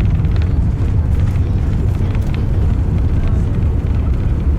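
Steady low rumble of an Airbus A350-1000's cabin as the airliner rolls along the ground just after landing, with a few faint clicks and rattles.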